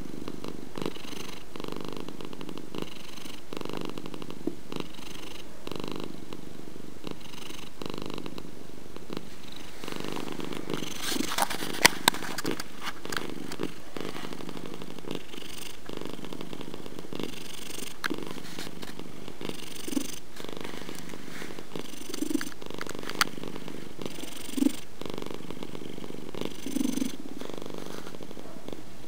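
Domestic cat purring steadily close up, the purr swelling and easing in phases of a second or two, with a few sharp clicks about twelve seconds in.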